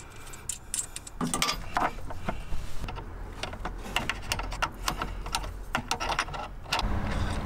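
Irregular light metallic clicks and clinks as a brass battery terminal clamp is handled, fitted onto a car battery post and its bolt worked with a hand tool.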